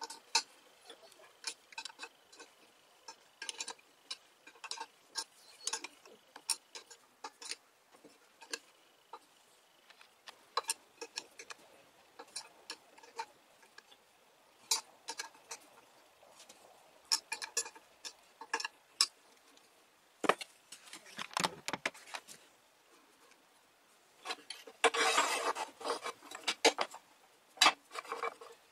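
Metal wrench clicking and clinking on the bolt jaws of a homemade wood-lathe chuck as a beech blank is tightened in it, in irregular sharp clicks. Near the end a louder, denser burst of rattling and scraping.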